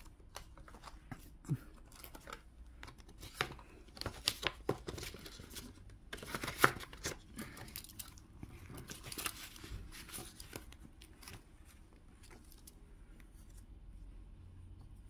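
Paper rustling and crinkling as banknotes, cash envelopes and a paper tracking card are handled, with irregular sharp clicks and taps; the loudest tap is near the middle, and the handling grows quieter toward the end.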